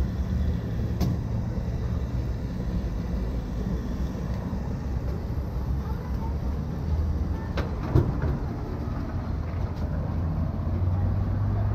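Fuel dispenser pumping petrol through the nozzle into the car's tank: a steady low hum of the pump with the rush of fuel flowing, with a sharp click about eight seconds in.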